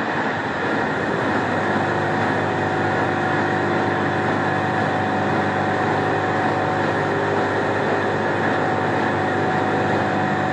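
Large engine lathe running steadily, spinning a big flanged steel shaft: a constant mechanical drone with several steady humming tones.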